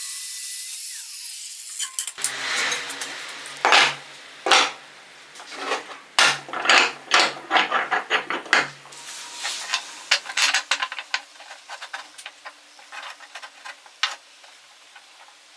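Metal clanking and scraping: iron pieces and tools knocked and scraped together in a run of uneven sharp strikes, with a faint low hum underneath. A steady hiss cuts off about two seconds in.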